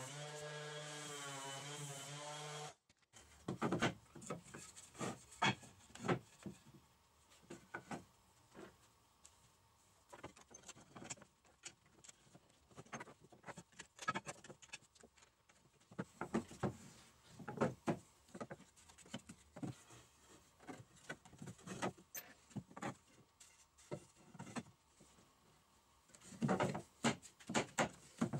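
A handheld power tool runs steadily and cuts off suddenly about three seconds in. Then wooden slats and battens knock and clatter against each other and the wooden workbench as they are handled, with a dense run of knocks near the end.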